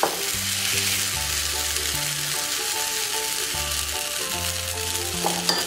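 Uttapam batter sizzling in hot oil in a nonstick frying pan as a steel ladle spreads it, with steady background music of held bass notes and a melody.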